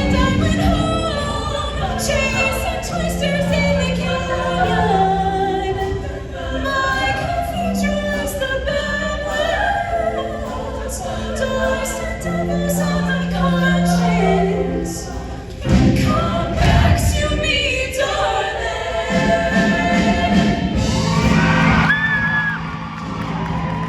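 Show choir singing in many voices over instrumental backing, with a sudden loud accent about sixteen seconds in.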